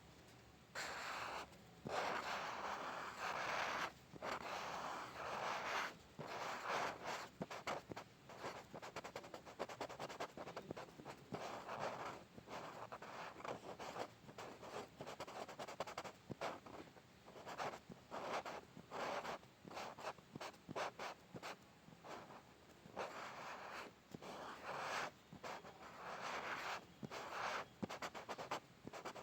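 Pencil drawing on paper: graphite scratching in repeated strokes, a few long ones of about a second near the start, then many short, quick strokes.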